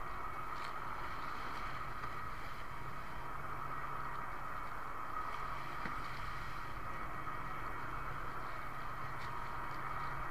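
Steady wind and choppy sea water around a small wooden outrigger canoe, over a constant low hum.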